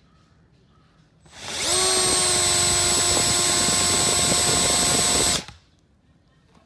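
Cordless drill spinning a bristle drill brush, rising quickly in pitch about a second in, then running steadily for about four seconds with the side of the brush's base rubbing against carpet, and cutting off suddenly. The spinning base is burning the carpet by friction.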